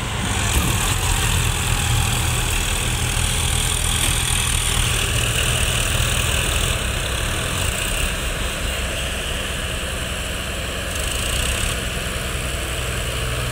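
Heavy diesel engines of farm tractors and a combine harvester running steadily under load as the tractors try to pull the combine out of deep mud, a continuous low engine drone with a steady higher hiss of machinery.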